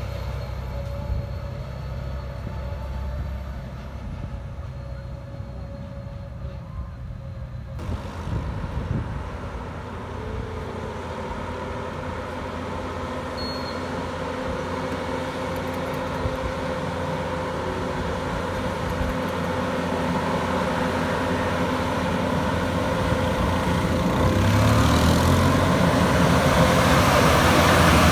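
Diesel engine of a tanker tractor-trailer running on a hairpin bend. After a cut about eight seconds in, another tanker truck's engine grows steadily louder as it approaches and passes close by near the end, with rising tyre and road noise.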